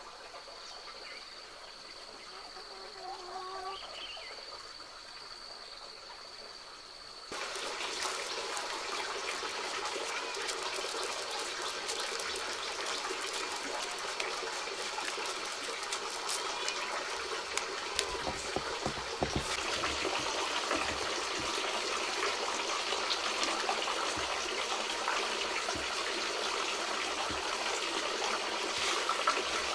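Dried maize kernels being twisted off the cob by hand and falling into a woven bamboo basket: a dense, continuous rattle of many small clicks that starts abruptly about seven seconds in. Before that, a few brief chicken clucks over a steady high-pitched hum.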